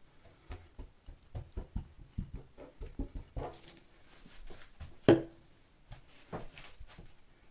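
Light handling sounds: a run of quick taps and squelches as polymer glue is squeezed from a plastic bottle and dabbed over foam, then one loud, short, sharp sound about five seconds in.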